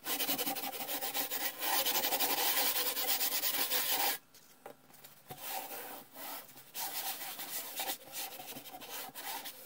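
Steel wool scrubbing rust off a painted metal cabinet panel in quick back-and-forth strokes. About four seconds in, the fast scrubbing stops and quieter, uneven rubbing follows.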